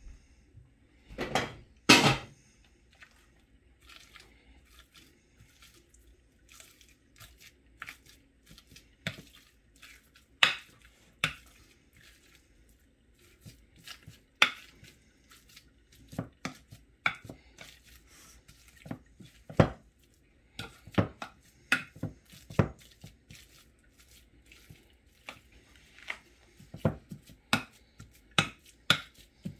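Wire potato masher knocking and scraping against a glass bowl while mashing boiled potatoes, in irregular clinks and thuds. About a second in, a couple of louder clanks as the potatoes are tipped from a steel pot into the bowl.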